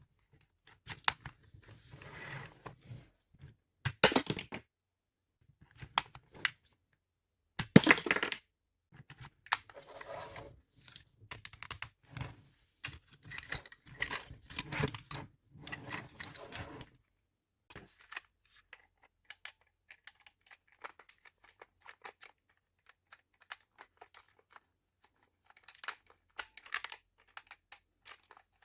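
Hands handling toy packaging and parts: irregular tearing and crinkling rustles with sharp clicks through the first half, the loudest around 4 and 8 seconds in. After that come only sparse light clicks and taps.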